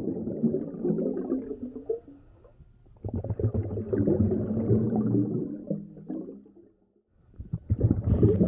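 Scuba diver's exhaled breath bubbling out of the regulator underwater, in three bursts a couple of seconds long with short quiet gaps between breaths.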